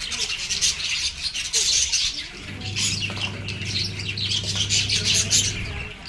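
A flock of budgerigars chattering, a dense, continuous run of quick high chirps.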